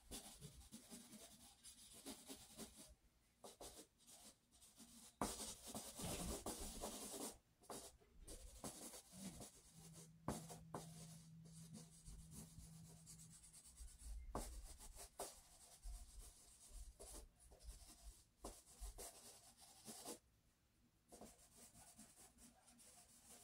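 Faint scratching and rubbing of a drawing stick across sketch paper while shading a drawing, in irregular runs of strokes with short pauses.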